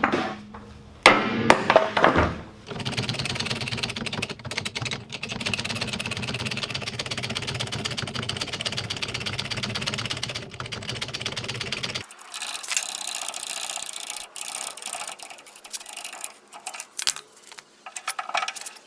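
Sledgehammer blows ringing on a steel pump-jack wrist pin, driving the tapered pin out of its crank-arm bore. Then a steady, fast mechanical rattle runs for about nine seconds. It stops suddenly and gives way to light clinks of steel parts.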